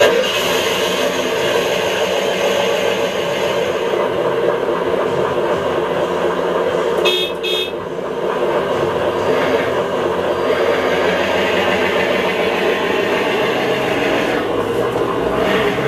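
Engine sound from a 1/10-scale RC Defender D90's sound module, played through its small speaker and running steadily, with two short horn beeps about seven seconds in.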